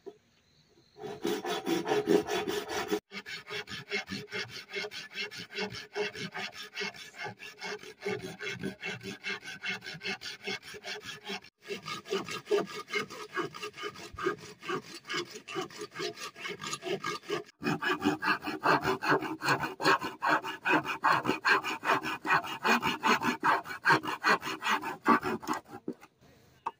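A long knife blade drawn rapidly back and forth across a bamboo pole, cutting into it with a rasping scrape on every stroke. It stops abruptly and restarts a few times.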